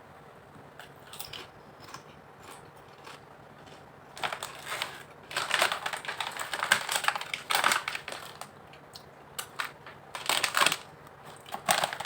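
Thin Lay's potato chips crunching while being chewed: irregular crackly crunches starting about four seconds in, with a second spell near the end.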